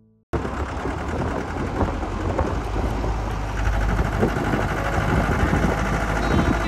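Jeep driving: its engine running under a loud, steady rush of noise and low rumble, with occasional knocks, cutting in abruptly just after the start.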